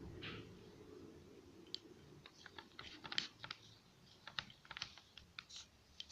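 Scattered small clicks and sticky pops, irregular and quiet, from hands kneading and pulling homemade laundry-detergent slime.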